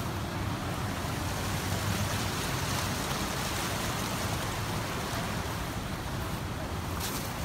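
Steady rush of muddy floodwater running fast through a channel and across a paved lot.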